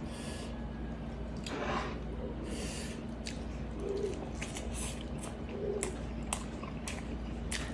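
Wet chewing, biting and lip smacks from someone eating soft, sticky braised pork leg with his hands: many short smacking clicks, with a couple of longer wet squelching noises about one and a half and two and a half seconds in.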